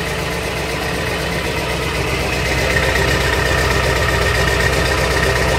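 2002 Ford F-250 Super Duty's 7.3-litre Power Stroke V8 turbo-diesel idling at the tailpipe shortly after a cold start with no block heater, running a little rough. It grows slightly louder about halfway through.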